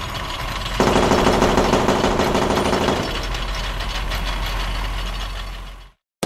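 Sound effect of a heavy engine running, with a louder, rapidly pulsing stretch from about one to three seconds in. It cuts off abruptly near the end, followed by a single sharp click.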